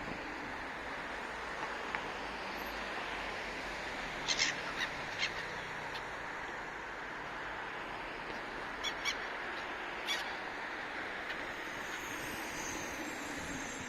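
Seagulls calling in short, sharp cries, a few about four seconds in and more around nine to ten seconds, over a steady background rush.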